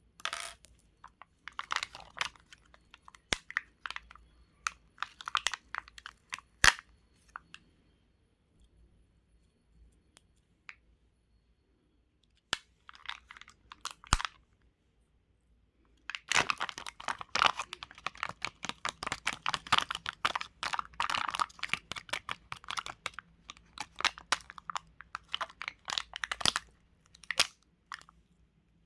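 Crunching, crackling sounds of ASMR craft material being squeezed and handled. They come in short bursts at first, then in a long dense run through the second half.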